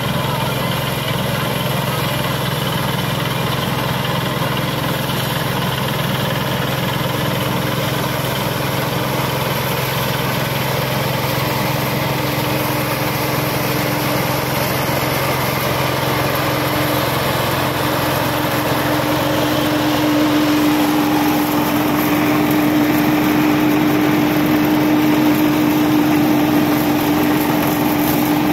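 Kirloskar mini combine harvester running as it cuts and threshes rice, a steady mechanical engine drone. In the latter part it gets a little louder, with a stronger higher-pitched whine.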